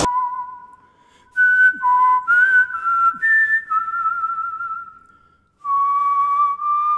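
A slow tune whistled by a person, in long held notes with a slight waver. It breaks off briefly about a second in and again past the five-second mark. This is a whistled melody from a drama soundtrack.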